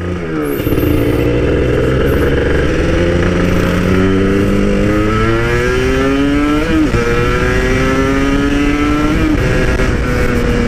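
Two-stroke motorcycle engine accelerating under way, its pitch climbing steadily and dropping sharply twice, about seven and nine seconds in, as it shifts up through the gears.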